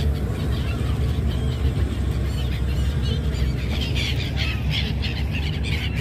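A flock of gulls calling in short high squeals, sparse at first and growing dense about halfway through, over a steady low rumble.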